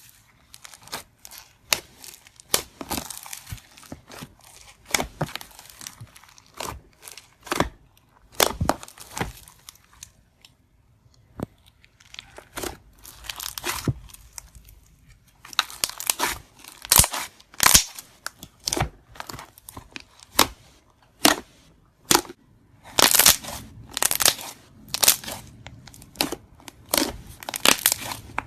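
Crunchy slime with beads mixed in, being worked so the beads crackle and crunch in irregular bursts of sharp pops. There is a short lull about ten seconds in, and louder, denser crunching in the second half.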